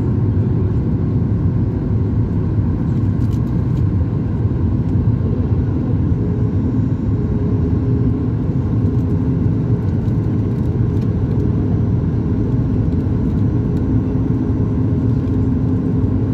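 Steady low rumble inside the passenger cabin of a Boeing 737 MAX 8, with a few faint steady hums running through it and no change in level.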